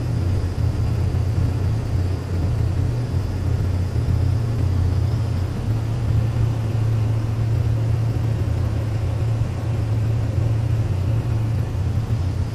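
Seaplane's propeller engine running steadily in flight, a constant low drone heard from inside the cockpit.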